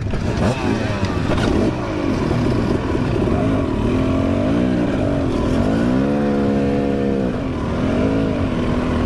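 Dirt bike engine running at low speed, its pitch rising and falling several times as the throttle is opened and eased off.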